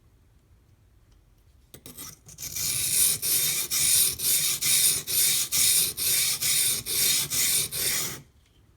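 Knife blade being stroked back and forth on a coarse 220 grit water stone. The rasping strokes come at about three a second, start a couple of seconds in and stop suddenly near the end. The coarse stone is cutting fast and raising a burr on the edge.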